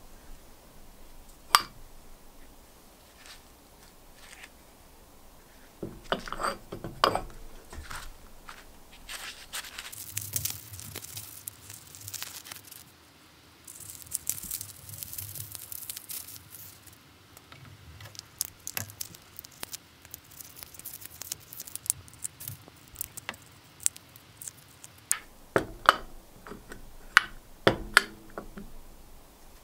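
Masking tape crackling as it is peeled off freshly painted metal drill housing parts, with sharp knocks of the metal parts being handled and set down on a wooden workbench, several of them close together near the end.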